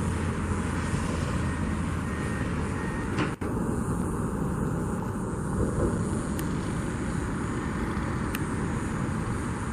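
Steady low rumble of vehicle noise, with a brief dropout about three and a half seconds in.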